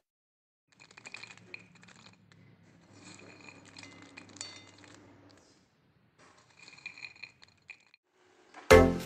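Faint clinks and light rattling of pigeon pea pods and beans on a ceramic plate, over a low hum. Loud music with a strong beat starts near the end.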